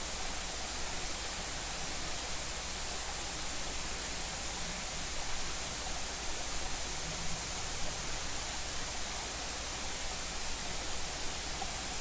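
Rushing water of a mountain waterfall and its stream: a steady, even rush with no other sound.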